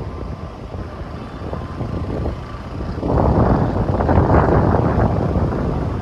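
Road traffic noise mixed with low wind rumble on the microphone, swelling louder for a couple of seconds about halfway through.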